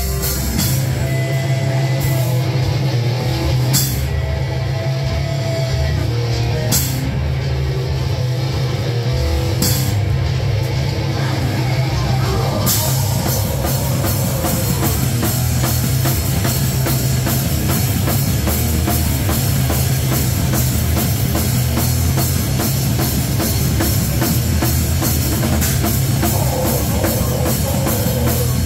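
Live heavy rock band playing loud: a sustained low guitar and bass drone with widely spaced cymbal crashes, then about 13 seconds in the drum kit kicks into a fast, driving beat under the full band.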